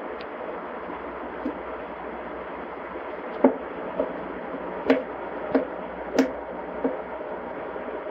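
Two cats wrestling on a wooden floor: a series of short, irregular knocks and thumps, mostly in the second half, over a steady background hiss.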